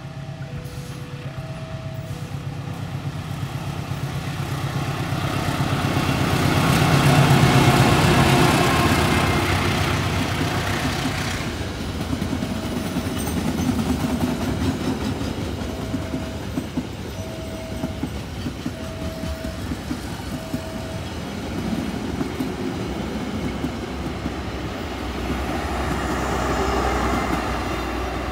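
A KLB special crane train passing, its locomotive's low engine hum building to a peak about seven seconds in, then steady wheel clatter on the rails. An alternating two-tone beeping sounds at the start and again in the middle.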